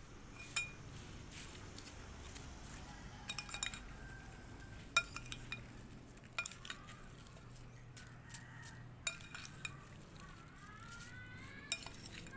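Metal spoon stirring chopped cucumber and apple in a ceramic bowl, clinking against the bowl. The clinks are sharp and come at irregular intervals, a few in quick clusters.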